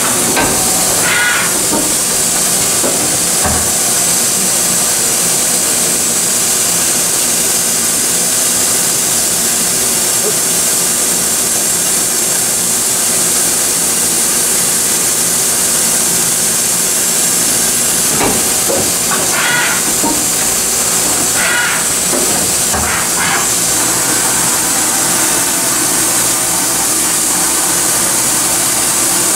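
Steady, loud hiss of rushing air from a 1995 Mazak HTC-400 horizontal machining center, unbroken and even throughout.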